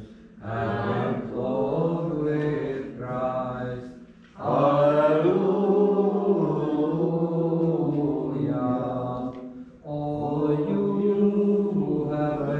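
Voices chanting a slow Orthodox liturgical hymn in sustained, held notes. The hymn comes in three phrases, each beginning after a brief pause: about half a second in, about four and a half seconds in, and about ten seconds in.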